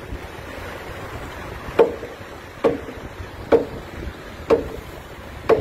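Repeated sharp knocking: five hard strikes about a second apart, each with a short ringing tail, beginning about two seconds in.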